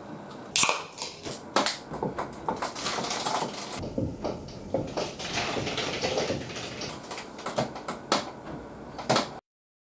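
A beer can's pull tab cracking open with a short hiss about half a second in, then beer poured from the can into a glass, splashing and foaming, with a few sharp knocks along the way. The sound cuts off suddenly near the end.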